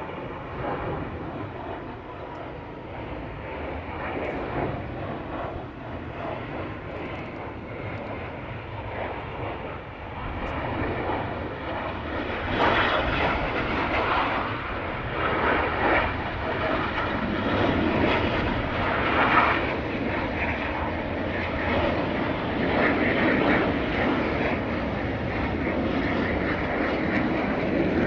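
Jet noise from the US Navy Blue Angels' F/A-18 Hornets flying overhead. It is a continuous rushing jet sound that grows louder about halfway through as the jets pass.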